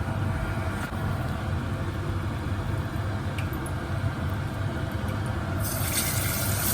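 A steady low hum, then about five and a half seconds in a sudden loud sizzling hiss starts and keeps going as chicken leg pieces go into hot frying oil.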